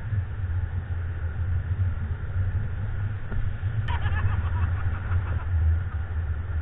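Wind buffeting the microphone of a camera on a tandem paraglider in flight: a steady, fluttering low rumble. A single click comes just before four seconds in, followed briefly by a faint higher rustle.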